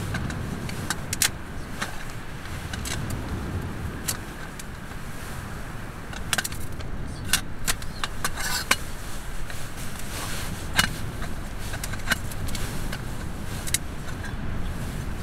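Scattered sharp metal clinks of camp cookware being handled, a small round grill grate and its lid set and moved, over a steady low rumble of strong wind on the tent.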